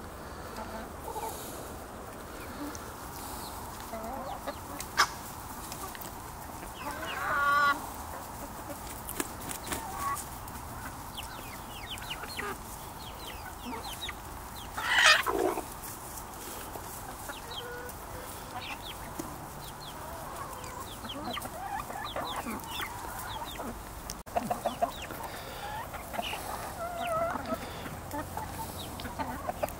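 A flock of backyard chickens clucking steadily while feeding. Two louder calls stand out, about a quarter of the way in and about halfway.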